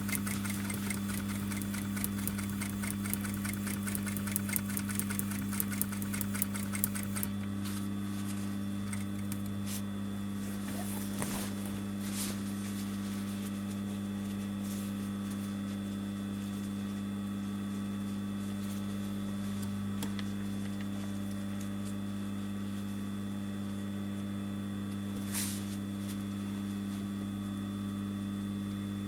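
Sewing machine stitching rapidly for about seven seconds, then its motor humming steadily with no stitching, broken by a few single clicks.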